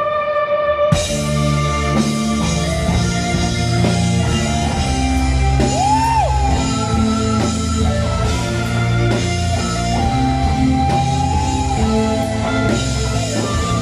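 A rock band playing live. A held keyboard chord sounds alone at first. About a second in, drums, bass, electric guitar and keyboards crash in together, and a lead line bends up and back down about six seconds in.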